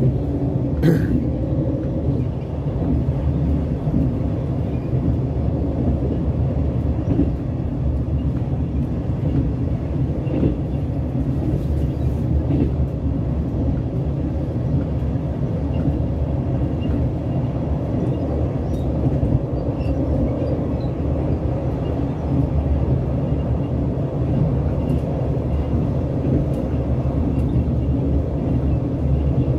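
A passenger train running at speed, heard from inside the carriage: a steady rumble of wheels on the track and running gear, with a brief click about a second in.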